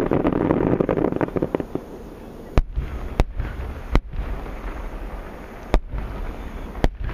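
Distant fireworks of large aerial shells, the 12-inch shakudama. The first two seconds are dense crackling. Then come five separate deep booms, with a low rumble echoing between them.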